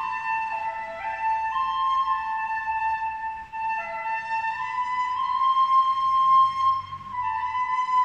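Flute-like whistling from a closed double door, a run of held tones that step from pitch to pitch, sometimes two sounding together, as air is drawn through the door.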